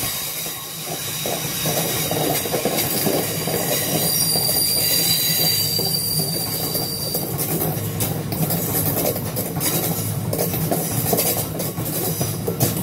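Freight train of open box wagons loaded with stone rolling past close by: a steady rumble of wheels on rail with irregular clacks and knocks. A high wheel squeal rings out for a few seconds partway through.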